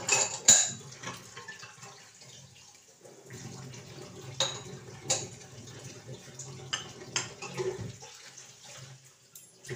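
Tap water running into a kitchen sink as dishes are washed, with a few sharp clinks of steel utensils, the loudest near the start.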